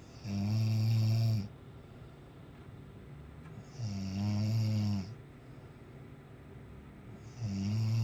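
A man snoring: three low, buzzing snores, each a little over a second long, coming about every three and a half seconds, with quiet breathing between them.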